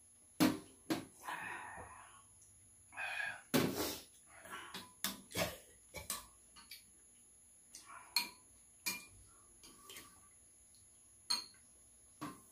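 Spoons and mugs clinking and knocking irregularly against ceramic bowls and a metal serving tray during a meal, with a couple of short sipping or slurping sounds in the first few seconds.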